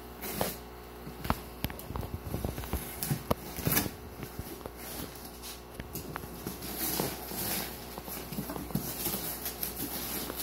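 Cardboard shipping box being opened by hand: a string of sharp taps and knocks on the box, then denser rustling as the cardboard flaps are pulled open, over a steady low hum.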